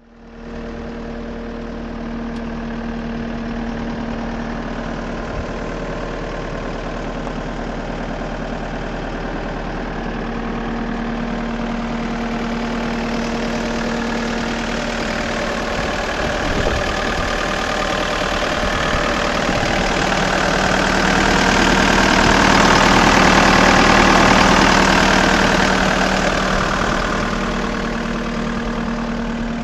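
Case SV250 skid steer's diesel engine running at a steady idle. It grows gradually louder and fuller, peaking about three-quarters of the way through, then eases back.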